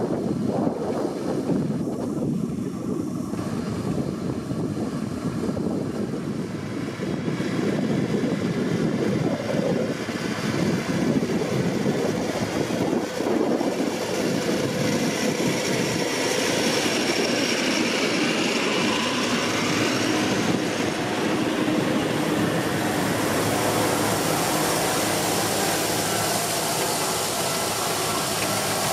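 Kubota M7171 tractor's four-cylinder diesel running steadily under load while pulling a combined rotary harrow and maize planter through the soil, a continuous drone of engine and working machinery. From about halfway it turns brighter and more hissy.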